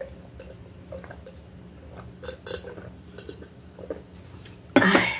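Soft swallowing and wet mouth sounds of someone drinking juice from a glass: small irregular clicks and gulps. Near the end comes a short loud burst of sound.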